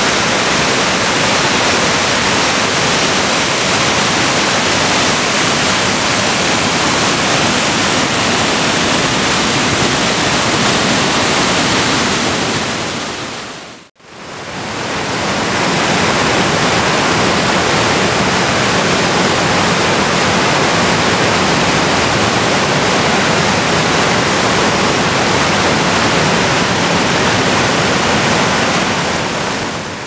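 Skoltefossen waterfall and rapids on the Neiden river: loud whitewater rushing steadily over rock. The sound fades out briefly about halfway through and then comes straight back.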